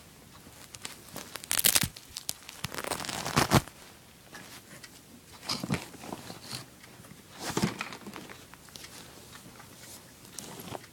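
Fabric rustling and crinkling close to the microphone as a small red dog costume and plush toy dogs are handled, with a few louder scrapes.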